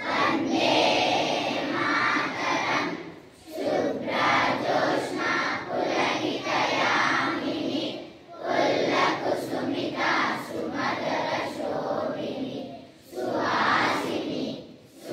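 A group of school children singing together in unison into a microphone, in phrases of about four seconds with short breaks between them.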